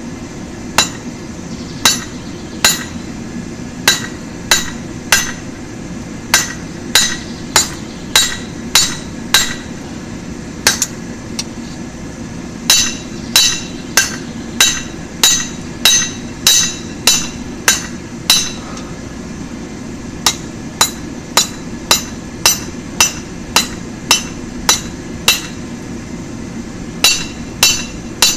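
Hammer striking a hot 5/8-inch round mild steel bar on an anvil, flattening out the jaw of a tong blank: a steady rhythm of sharp ringing blows, a little more than one a second, with two short pauses, over a steady low hum.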